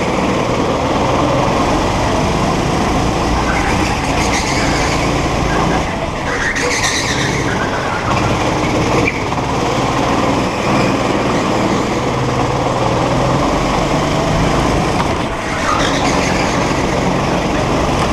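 A go-kart at racing speed, heard from on board, its motor running hard with tyre and road noise. The tyres squeal briefly a few times in the corners, loudest about a third of the way in.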